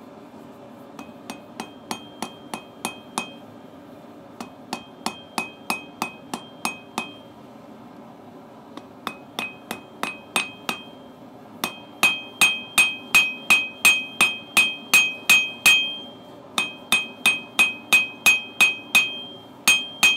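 Hand hammer striking steel on an anvil in runs of about three blows a second, each blow ringing clearly, with short pauses between runs. The longest and loudest run starts about twelve seconds in.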